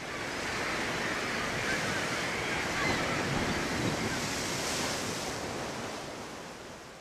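Sea surf: a steady rushing wash of small waves breaking along a beach. It fades in at the start and fades out near the end.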